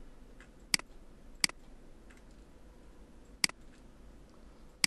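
Computer mouse clicks: four sharp single clicks spaced unevenly over a few seconds, over a faint steady hum.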